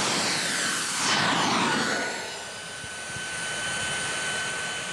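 Small single-rotor jet engine on a recumbent tricycle running and pushing the trike along: a steady high whine over a rushing exhaust hiss. It swells about a second in, as if passing close by, and dips a little after two seconds.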